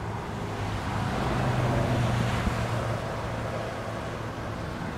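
Highway traffic: a steady rush of passing vehicles with a low engine drone that swells about two seconds in and then eases.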